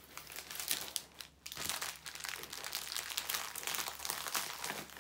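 Clear plastic film on a diamond painting canvas crinkling as the canvas is handled and rolled up by hand, with a brief lull a little over a second in.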